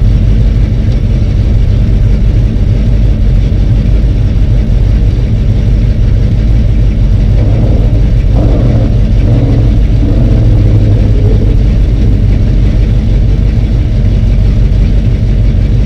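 Race car engine idling loudly, heard from inside the cockpit, a steady low rumble. Near the middle an engine note rises and falls for a few seconds.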